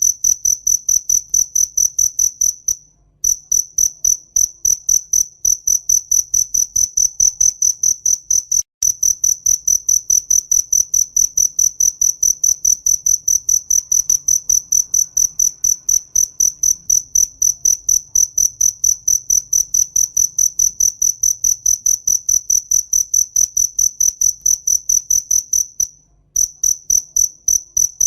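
A cricket chirping steadily and loudly on one high pitch, several chirps a second, pausing briefly about three seconds in and again near the end.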